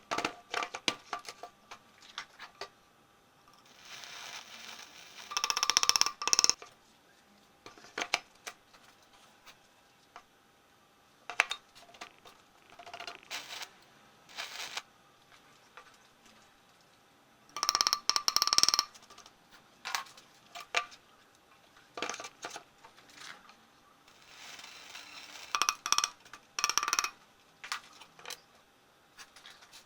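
Steel square tubing being worked by hand: scattered metallic clinks and knocks that ring, with a few brief scraping passes about a third of the way in, around the middle, and near the end.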